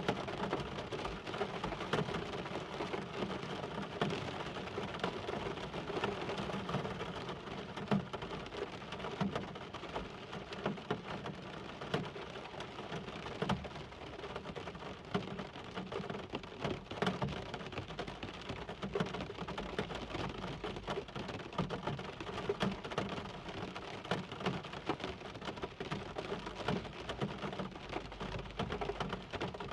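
Steady rain falling, with many separate drop hits heard over the constant wash of the rain.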